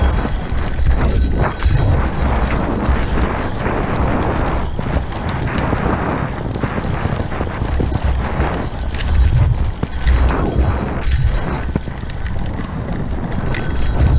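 Rigid-frame gravel bike on 2-inch tyres rolling fast over a rough dirt trail: tyres crunching over dirt and twigs, with frequent irregular knocks and rattles from the bike, and wind rumbling on the microphone.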